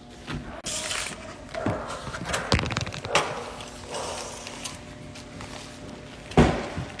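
Scattered household knocks and clicks, with a brief hiss about a second in and one loud thump near the end.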